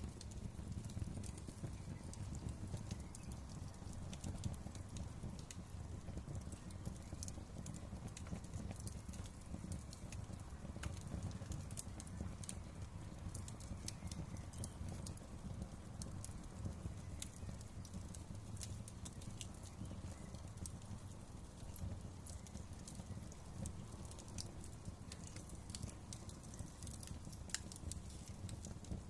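Wood fire crackling in a fireplace: a steady low rumble with frequent sharp, irregular pops and snaps.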